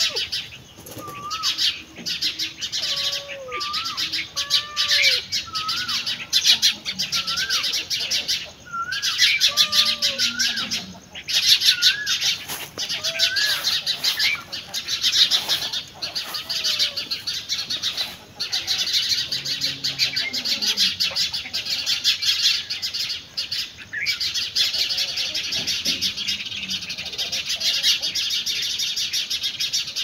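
Birds chirping and singing: a dense chorus of high chirps throughout, with many short whistled notes that rise and fall, repeating every second or so.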